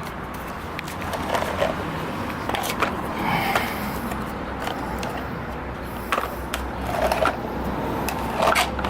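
Tools and parts of a car's tool kit being handled: scattered sharp clicks and knocks, with short scraping and rattling bursts several times.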